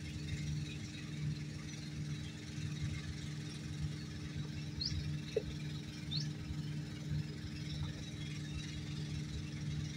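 An engine idling steadily with a low throbbing hum. A few faint short chirps come about halfway through.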